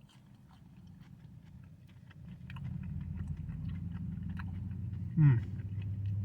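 A person chewing a Burger King chicken nugget, with many small mouth clicks and soft crunches. A low steady hum comes in about two seconds in, and a loud brief sound sliding sharply down in pitch comes about five seconds in.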